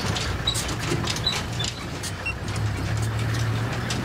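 Safari vehicle's engine running as it drives along a bush track, with a steady low hum that is strongest a little past halfway. Frequent short knocks and rattles run through it.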